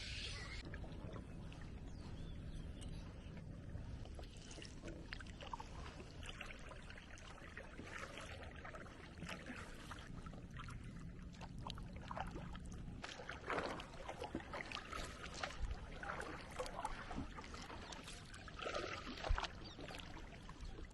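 Water splashing and lapping around a small boat under way, in irregular splashes that grow louder around the middle and again near the end, over a steady low rumble.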